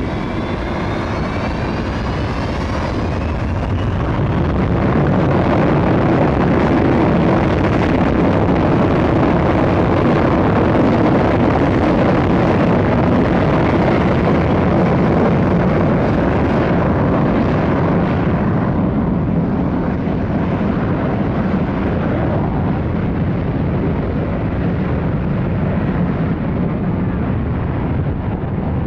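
Boeing 727-200's three rear-mounted Pratt & Whitney JT8D turbofans spooling up to takeoff power. A rising whine comes over the first few seconds, then a loud steady rumble through the takeoff roll. The rumble grows duller after about eighteen seconds as the jet draws away.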